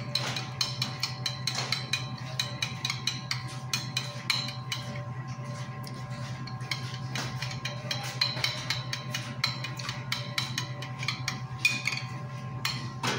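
Metal spoon beating eggs in a glass bowl, clinking rapidly and unevenly against the glass several times a second, over a steady low hum.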